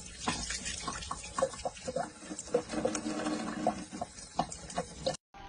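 A thin stream of water running from a tap, a steady light hiss, while a cat laps at it, making repeated small irregular wet clicks.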